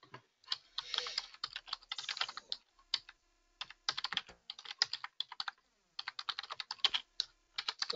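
Typing on a computer keyboard: quick runs of keystroke clicks, with a short pause about three seconds in.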